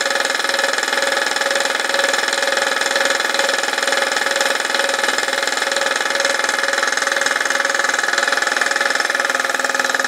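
Air compressor running steadily, feeding an air-hose spray gun that hisses as it sprays paint.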